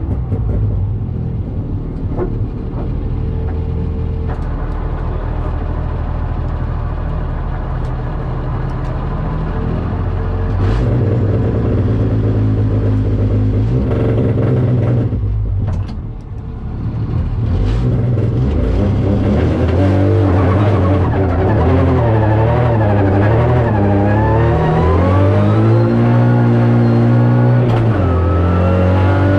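Ford Fiesta R2T rally car's turbocharged three-cylinder engine heard from inside the cabin, driven hard under acceleration. About sixteen seconds in it briefly drops back. After that the revs climb and fall again and again as it changes up through the gears.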